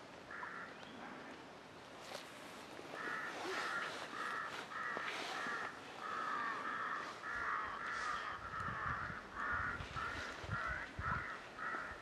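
Crows cawing: short harsh calls repeated in quick series, a few at first and then nearly non-stop from about three seconds in, several calls a second. A few low thuds in the second half.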